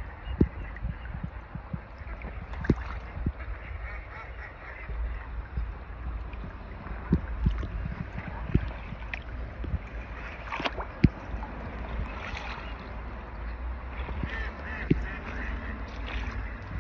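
Ducks and geese calling on and off, short honks and quacks over a steady low rumble, with several sharp knocks.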